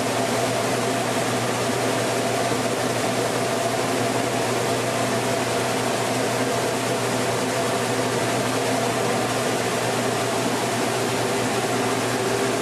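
Mini rice mill running steadily: an even machine noise with a constant hum underneath.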